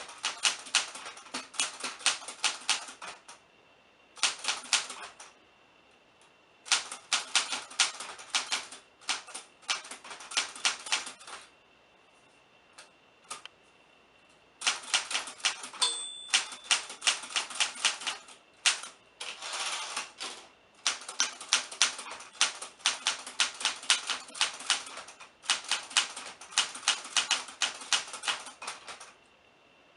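Typewriter keys struck in runs of rapid, sharp clacks, broken by short pauses of one to three seconds between runs.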